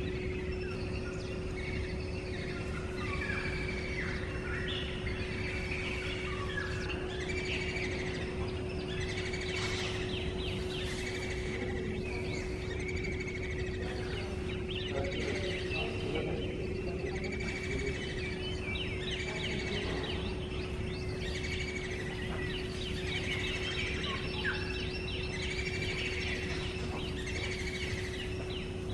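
Several wild birds chirping and calling in the trees, short whistled notes repeated again and again without a break, over a steady low hum and background hiss.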